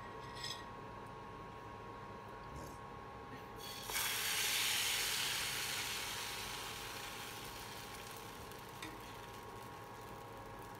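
Pancake batter sizzling as it is ladled into a hot nonstick frying pan on an induction hob: a sudden hiss about four seconds in that fades slowly over the following seconds. A short clink comes near the start.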